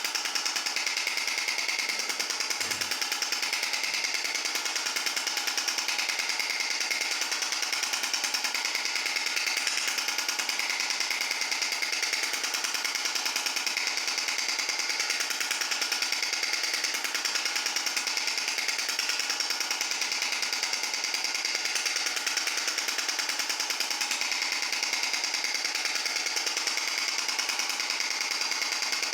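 Extracorporeal shock wave therapy (ESWT) device firing a rapid, steady train of sharp clicking pulses, a monotonous repeating rattle that does not change.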